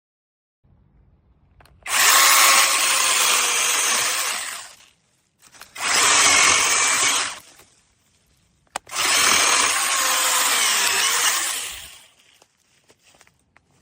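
SEESII 8-inch cordless brushless mini chainsaw running in three bursts of about three, two and three seconds, with a sharp click before the last one.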